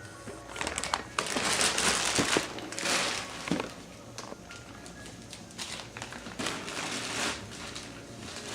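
Gift-wrapping paper rustling and crumpling in several bursts, loudest in the first few seconds, with small crinkles and clicks after.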